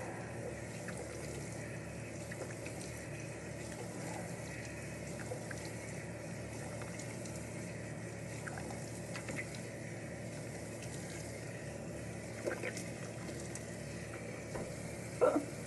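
Water running steadily from a tap into a bathroom sink while a face is rinsed, with a few faint splashes and clicks.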